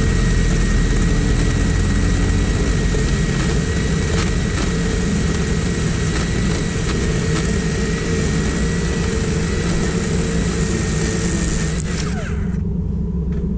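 Black & Decker GKC3630L20 36-volt cordless chainsaw running with a steady electric whine as its chain cuts into a log. About twelve seconds in the trigger is released and the motor winds down with a falling tone. A steady low rumble runs under it and carries on after the saw stops.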